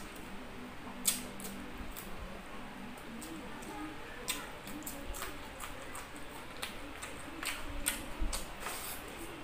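Close-up eating sounds of a person eating with the hand: irregular wet lip smacks and chewing clicks, a few at a time, with short gaps between them.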